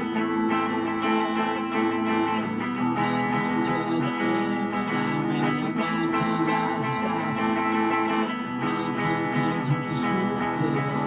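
Guitar playing an instrumental passage of a rock song, with strummed chords and picked notes at a steady level.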